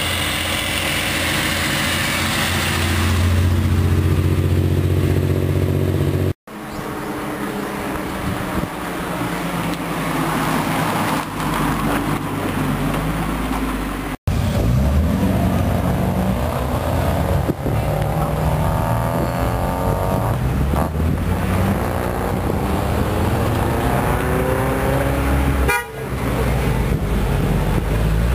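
Modified classic Japanese cars with loud aftermarket mufflers running past at low speed, engines blipped and revved so the pitch rises and falls, across several separate clips.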